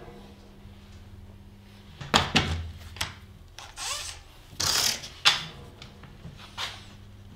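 Wood and tools being handled: several sharp knocks and clatters, loudest about two and five seconds in, with a short scraping rush just before the second loud knock, over a faint steady hum.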